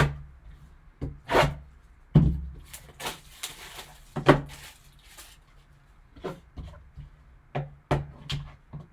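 Cardboard card-box packaging being handled and opened: a string of sharp taps and knocks, with a stretch of scraping and rustling a few seconds in.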